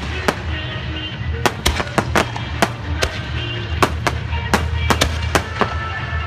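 Aerial fireworks shells bursting in a rapid string of sharp bangs, more than a dozen in about six seconds, irregularly spaced, over a steady low rumble.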